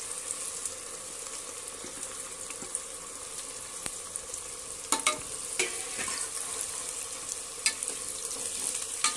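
Freshly sliced onions sizzling in hot oil in a pressure cooker, being stirred with a steel ladle that clinks against the pot several times from about five seconds in.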